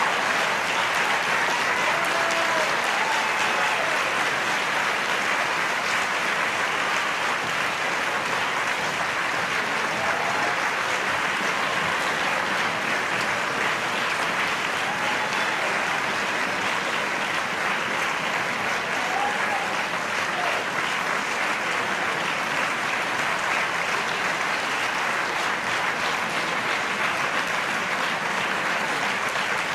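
Large audience applauding steadily, a dense even clapping that eases slightly as it goes on, with a few voices calling out above it.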